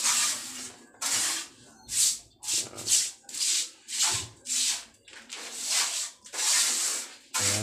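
Brush scrubbing across a cement-covered concrete countertop in short, even, scratchy strokes, about one and a half a second. Cement is being worked into the dampened surface as a bond coat so the cement topping will stick.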